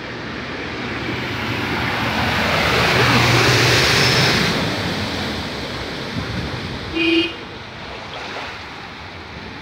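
Floodwater rushing and churning over a flooded street, swelling louder for a few seconds and then easing off. A short pitched beep sounds about seven seconds in.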